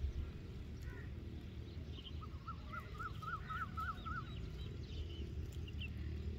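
A bird calls a couple of seconds in with a quick run of about seven rising-and-falling notes, among other faint scattered chirps, over a steady low rumble.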